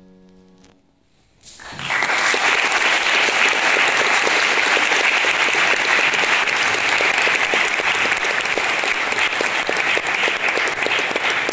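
The grand piano's final chord fades out, and after a moment of near silence the audience starts applauding, a steady, dense clapping that holds to the end.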